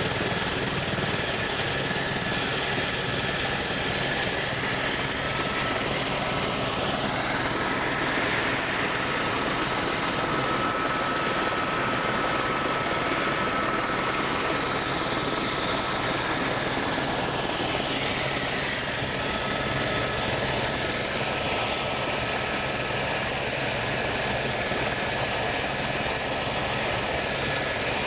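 Steady drone of a light aircraft in flight, heard from inside the cabin: an even rushing engine noise with a few faint steady tones, changing little.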